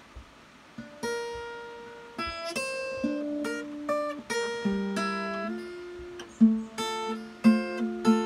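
Acoustic guitar played solo. After about a second of quiet, picked chords and single notes ring out and fade, with a few sharper, louder strums near the end.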